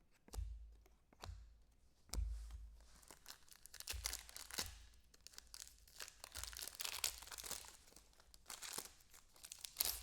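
Foil wrapper of a trading-card pack being torn open and crinkled, with cards handled: a string of irregular rustles, crackles and small clicks.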